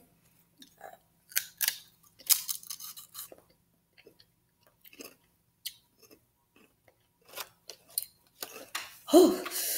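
Potato chips being bitten and chewed: a scattering of short, crisp crunches and crackles, with a brief vocal sound near the end.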